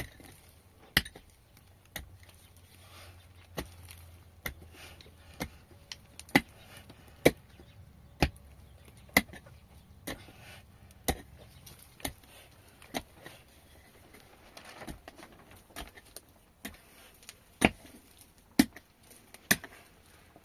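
Repeated hard blows of a hand tool on wood, about one a second, with a short pause about fifteen seconds in.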